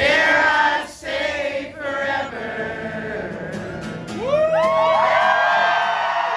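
A crowd of voices sings along loudly with an acoustic guitar. About four seconds in, many voices sweep up in pitch into a sustained cheering whoop.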